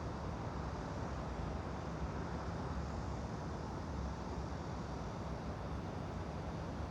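Steady, even background noise with a low rumble and no distinct events: a white-noise ambience track.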